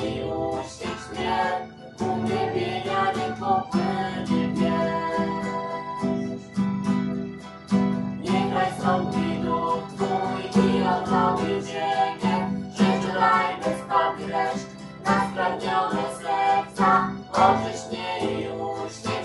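Music led by a strummed acoustic guitar, with singing.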